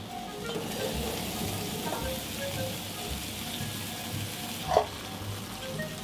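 Food sizzling on a hot flat-top griddle, a steady hiss that swells about a second in and drops away near the end, over background music. A single sharp knock near the end is the loudest sound.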